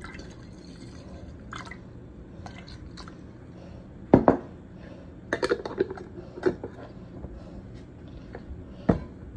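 Banana pepper juice poured from a jar into a stainless steel pot of water, with light dripping. Several knocks and clatters of the jar and pot, the loudest about four seconds in and again near the end.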